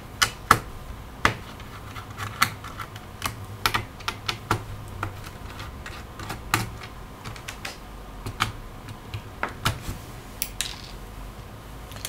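Small Phillips screwdriver backing out the battery screws in a laptop's plastic chassis: scattered sharp clicks and taps of the metal tool and tiny screws against the case.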